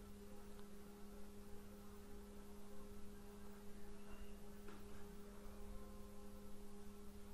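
Faint steady hum made of two low tones, over a low background rumble; nothing else stands out.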